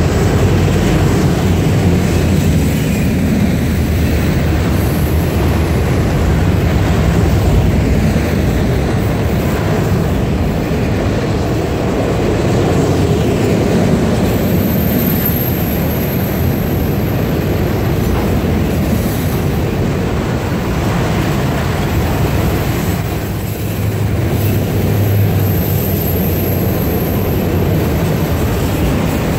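Autorack freight cars of a CSX train rolling past at steady speed, a continuous rumble and clatter of steel wheels on the rails. A thin high-pitched squeal comes in twice, about halfway through and again near the end.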